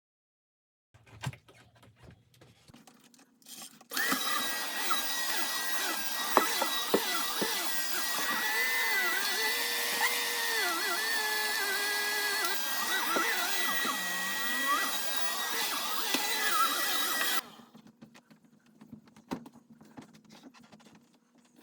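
An electric cleaning machine's motor runs for about thirteen seconds, its whine dipping and wavering in pitch as it loads and unloads against the couch fabric. It starts about four seconds in and cuts off suddenly.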